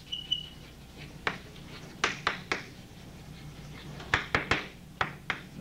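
Chalk writing on a blackboard: sharp taps and short scratches of the chalk striking the board, in uneven clusters.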